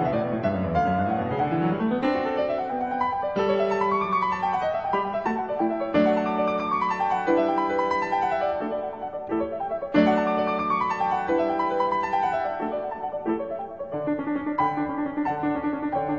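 Background piano music: quick runs of notes sweeping up and down, with held chords between them.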